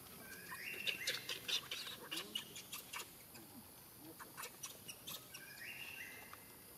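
High-pitched animal calls: a squeal that rises and then holds a steady high tone, heard twice, amid a rapid scatter of short sharp chirps.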